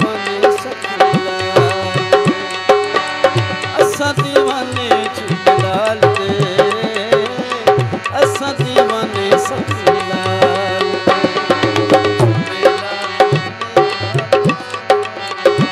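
Live devotional folk music with no singing: a hand drum beats a steady rhythm over held, sustained chords, most likely from a harmonium.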